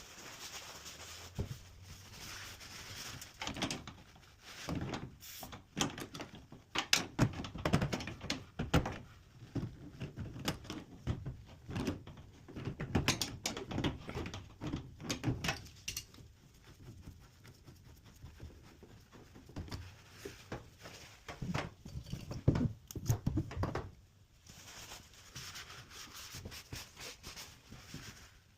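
Irregular knocks, clicks and clatter of hard objects being handled, in two busy spells, with a faint hiss at the start and again near the end.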